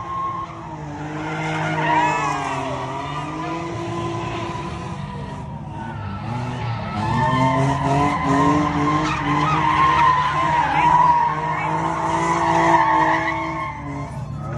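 Car engine revving up and down as the car drifts in donuts, its tyres skidding and squealing; the revs climb and are loudest in the second half.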